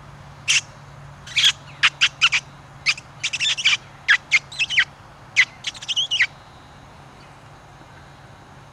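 Hand-blown predator call used to bring in a fox: a fast, irregular run of about twenty short, high-pitched squeals over about six seconds, then it stops.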